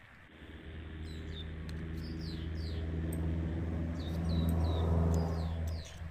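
A steady low engine-like drone that grows louder over the first few seconds. Birds chirp over it in several short, falling chirps.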